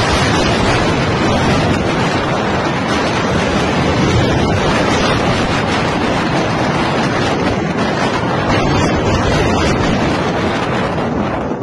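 Strong wind blowing straight into a phone's microphone: a loud, steady rushing noise with no letup.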